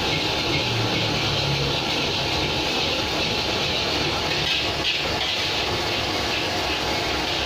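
Fried rice frying in a wok over a gas wok burner: a steady rush of burner flame and sizzle, with a few clinks of the metal spatula against the wok about two thirds of the way in.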